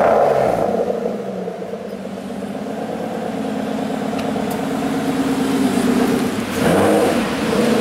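Aston Martin DBS V12 engine just after start-up: its revs fall from a flare to a steady high idle, then it gives one quick rev blip near the end.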